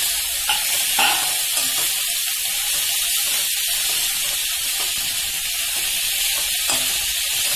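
Chopped drumstick (moringa) leaves frying in hot oil in a steel kadhai, a steady sizzle, stirred with a steel spatula that scrapes lightly now and then.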